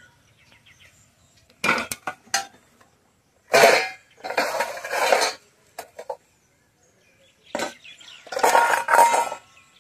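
Steel plates, bowls and frying pans clattering and clinking as they are handled and set down out of a bamboo basket, in several short bursts.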